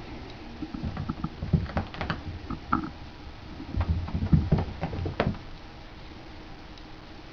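Cats' paws thumping and tapping on the floor in quick, irregular steps as they scamper and pounce, dying away about five seconds in.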